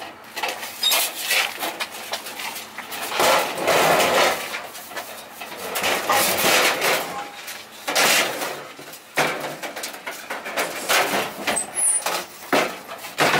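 A four-burner gas grill being shoved and manoeuvred into a pickup truck bed: irregular scraping, bumping and rattling as it slides against the truck, some pushes lasting a second or more.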